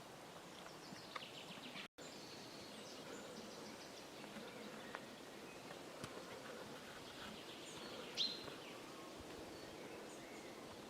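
Faint rural outdoor ambience with birds chirping now and then, one sharper, louder call about eight seconds in. The sound cuts out for an instant about two seconds in.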